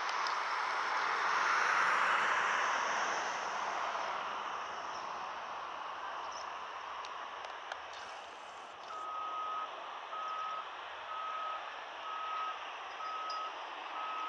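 Rolls-Royce Trent 772B turbofans of a landing Airbus A330-300 during rollout: a broad jet roar that peaks about two seconds in and then dies away. From about nine seconds in, a vehicle's reversing alarm beeps steadily on one pitch, about once a second.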